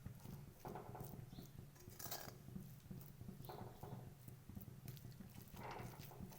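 A spoon stirring and scraping crumbled paneer in a kadhai, a few separate strokes about a second and a half apart.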